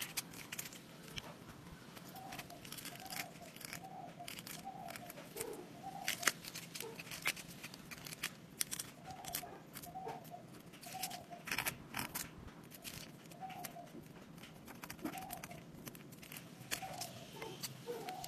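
Light handling sounds: scattered clicks and taps with crinkling of paper cupcake liners, as a small plastic mould and a stick press shapes into soft dalgona candy on a plate.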